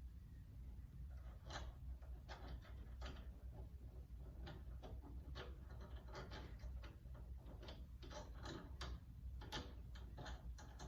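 Light, irregular clicking and tapping of metal door-handle hardware being handled, as mounting screws are fed through and lined up with the lock mechanism.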